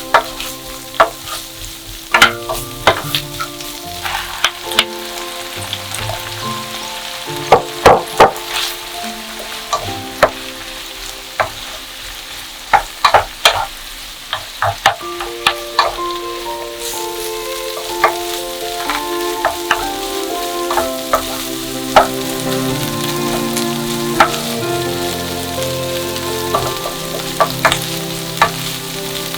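Food sizzling as it fries in a pan, with frequent sharp clicks and taps of a utensil stirring against the pan.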